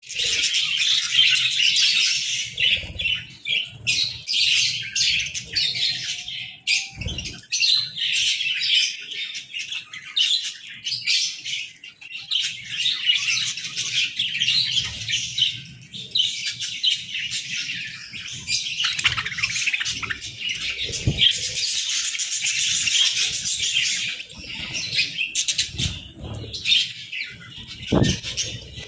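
Budgerigars chattering and chirping continuously, several birds overlapping at once, with a few short low thumps mixed in.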